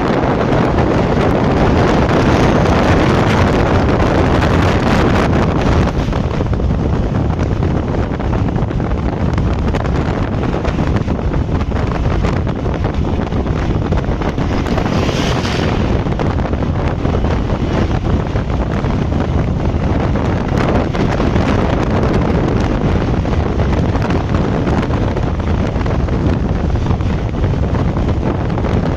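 Steady wind and road noise of a vehicle driving at highway speed, with wind buffeting the microphone. About fifteen seconds in, a brief brighter hiss swells and fades.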